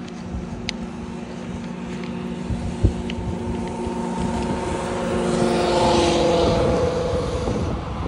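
A car passing close by. Its engine hum and tyre noise grow louder to a peak about six seconds in, then begin to ease off, with a single short knock about three seconds in.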